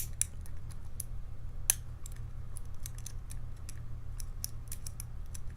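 Lock pick and tension wrench working the pin stack inside a challenge padlock: irregular small metallic clicks and ticks as the pins are raked and lifted, one click louder than the rest a little past the middle.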